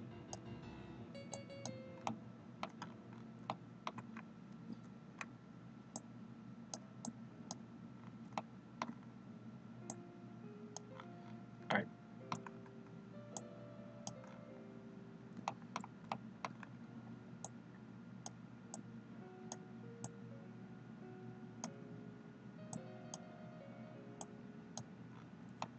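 Irregular clicks of a computer mouse and keyboard while a 3D model is being worked, a few a second at times, over a steady low hum and faint background music.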